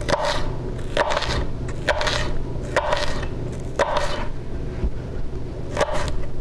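Kitchen knife slicing through a shallot onto a wooden butcher-block cutting board: six crisp cuts, about one a second, each with a short scrape, and a pause of about two seconds before the last.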